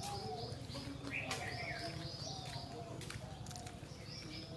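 Birds chirping: runs of short, quick high notes, with one lower, longer call about a second in, over a steady low rumble.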